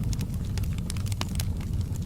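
Wood fire in a fireplace crackling, with scattered sharp pops over a steady low rumble.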